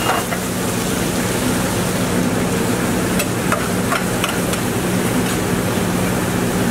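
Steady commercial-kitchen din: the range exhaust hood's fan humming and rushing, with meat sizzling on a flat-top griddle. A few light metallic clicks from a spatula come in the middle.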